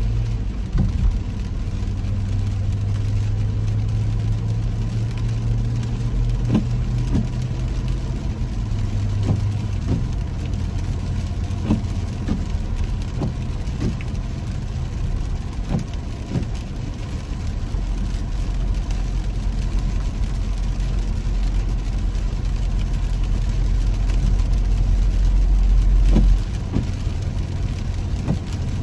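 A car's engine and tyres on a wet road, heard from inside the cabin. It is a steady low drone that shifts in pitch about ten seconds in and drops in level near the end, with scattered short taps.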